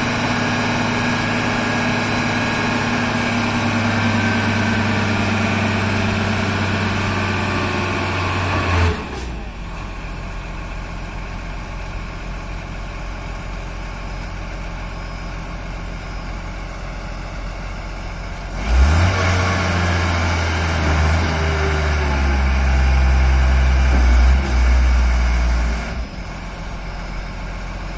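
A HIFOUNE 10-ton diesel forklift's engine runs at raised revs for about nine seconds, then drops suddenly to idle. About two-thirds of the way through it revs up again for several seconds, with a brief dip, before falling back to idle near the end.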